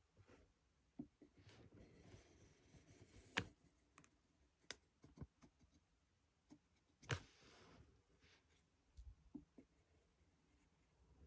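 Pen scratching faintly on a small sheet of paper in short drawing strokes, with a few sharp taps of the pen; the sharpest tap comes about three and a half seconds in.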